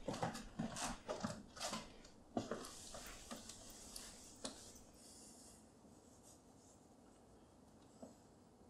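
Soft rustling with small clicks and taps, bunched in the first couple of seconds, fading to a faint hiss and then quiet room tone by about halfway.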